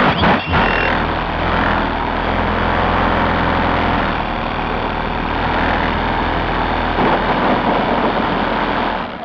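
The Jupiter Junior RC plane's motor and propeller running in flight, heard through its onboard camera with rushing airflow, a steady noisy drone that dies away near the end.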